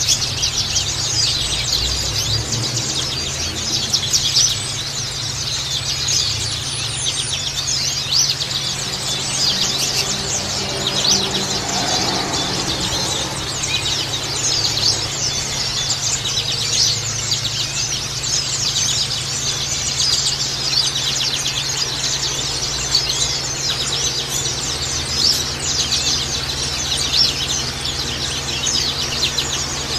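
White-eyes (pleci) singing: a dense, continuous high-pitched twittering of rapid chirps, over a faint steady low hum.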